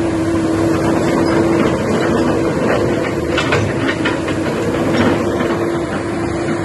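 Komatsu PC200 hydraulic excavator running, its diesel engine making a steady noise with a constant hum-like tone through it.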